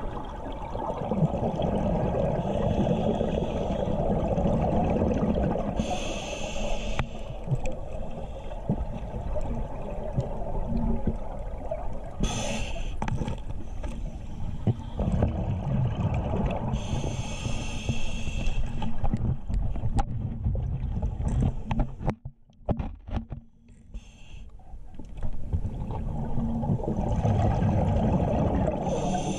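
Underwater sound of a scuba diver breathing through a regulator: a hiss every few seconds over a continuous muffled rumble of water against the camera housing, briefly dropping away about two thirds of the way through.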